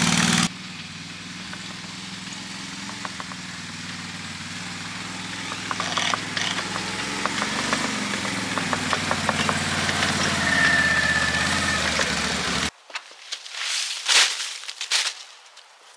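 A motor engine idling steadily, loud for the first half-second and then steady at a lower level, cutting off abruptly about twelve and a half seconds in. Scattered rustling and scuffing noises follow, fitting wet leaves being handled for mulch.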